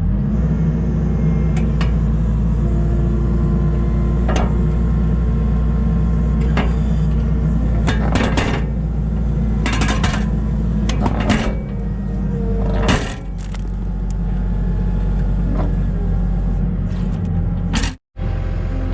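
Skid steer engine running steadily under load as it drags the old concrete piece out on a chain, with several knocks and short scraping clanks as the concrete shifts.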